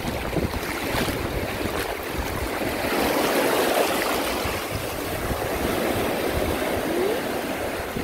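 Small waves washing in over a shallow, flat sandy beach, with wind buffeting the microphone.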